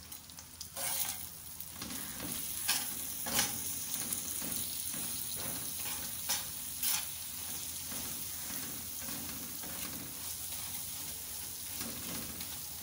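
Minced beef sizzling on a hot tawa griddle while a flat metal spatula stirs and scrapes it through. Several sharp clacks of the spatula striking the griddle stand out in the first seven seconds over the steady sizzle.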